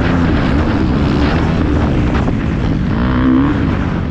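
Motocross bike engine under load as the bike is ridden round a dirt track, its pitch rising and falling with the throttle, with a dip and rise about three seconds in.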